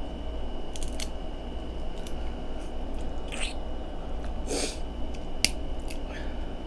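Boiled crab-leg and shrimp shells peeled by hand, with small sharp clicks and cracks of shell. Two wet sucking smacks, a little after three seconds and at about four and a half, come from licking sauce off the fingers. A faint steady electrical hum sits underneath.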